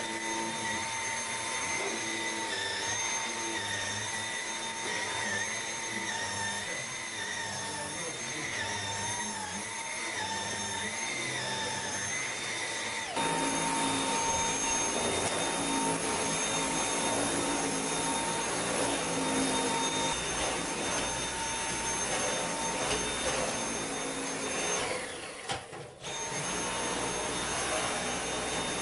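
Cordless stick vacuum cleaner running with a steady high whine, first with a small brush head on a fabric sofa, then with its floor head on a rug, where the sound turns louder and fuller about halfway through. It dips briefly near the end, then picks up again.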